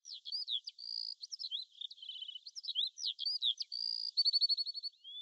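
High-pitched bird-like chirping: quick swooping whistles and short chirps one after another, ending in a fast trill of about a dozen notes a second near the end.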